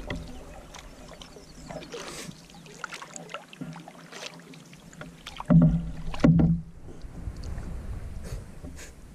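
Canoe paddles stroking through calm lake water: repeated splashes and drips from the blades, with two louder thumps close together a little past halfway.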